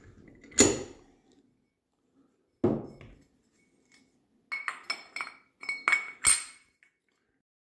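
Steel gears and parts of a Ford Model T differential clinking and knocking against each other and the table as the differential is put back together by hand. A clank comes about half a second in and a duller knock near three seconds. A quick run of ringing metallic clinks follows, the last and loudest near the end.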